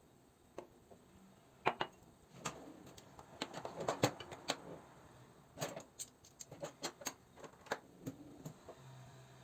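A run of irregular light clicks and taps, bunched in two clusters through the middle of the stretch.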